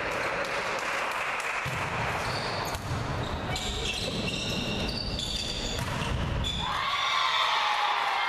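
Volleyball rally in a large hall: several sharp hits of the ball during the rally, then shouting and cheering near the end as the point is won.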